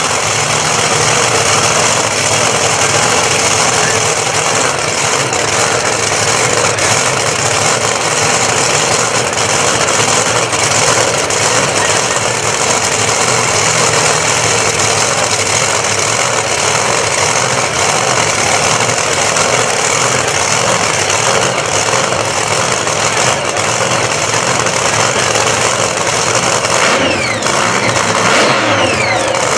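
Drag race cars' engines running loud and revving at the starting line, under steady crowd noise.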